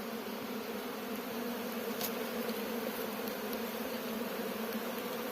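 Honeybees buzzing in a steady, dense hum as they fly in numbers around the hives of an apiary, active after a week confined to the hive by cold weather.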